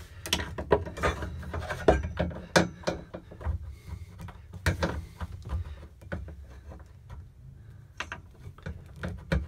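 Irregular metallic clicks, knocks and scrapes as a steel shift rod is worked by hand and pliers through a Volkswagen Beetle's central tunnel and its new shift bushing, with a few sharper knocks spread through.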